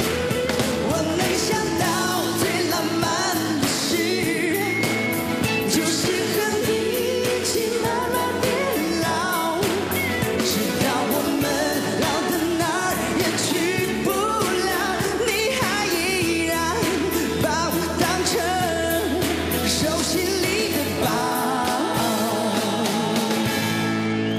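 Male singer singing a Mandarin pop song into a microphone, with instrumental accompaniment.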